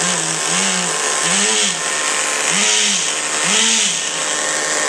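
Exceed Forza RC buggy's nitro glow engine running with the glow igniter still attached, its pitch rising and falling about once a second.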